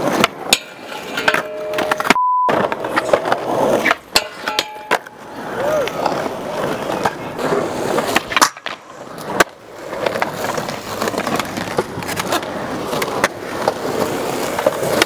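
Skateboard wheels rolling on concrete, broken by repeated sharp clacks of the board popping and landing. A short single-pitch beep just after two seconds in, with all other sound cut out around it, like a censor bleep.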